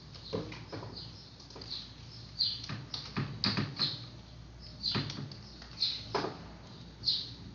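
Computer keyboard keystrokes and mouse clicks while a username and password are typed: irregular sharp clicks spread across the few seconds.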